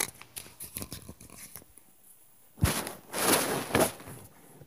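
Rustling and small clicks of a phone being handled and moved, then a sharp, deep thump about two and a half seconds in, followed by two loud, short, noisy bursts.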